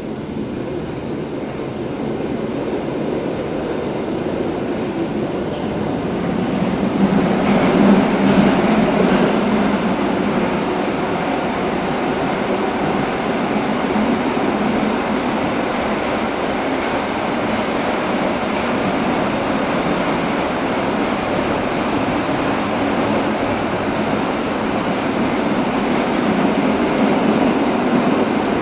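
Inside a subway car as the train runs on from a station into the tunnel: the rumble of wheels on rail and the car's running noise grow louder about seven seconds in, then hold steady.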